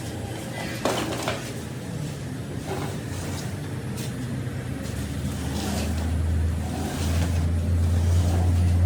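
A heavy machine's engine running with a steady low hum that grows louder over the second half, with a few short knocks or clanks in the first half.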